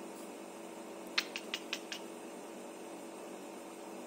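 Steady low background hum, with a quick run of about five light clicks a little over a second in.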